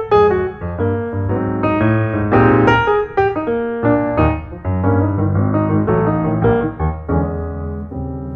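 Background piano music: notes struck in quick succession over low bass notes, getting a little quieter near the end.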